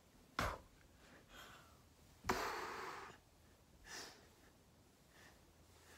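A person's breath close to the microphone: a short puff about half a second in, a louder exhale a little after two seconds that fades within a second, and a softer one around four seconds.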